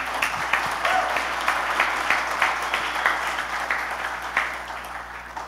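Audience applauding, starting at once and dying away gradually over several seconds.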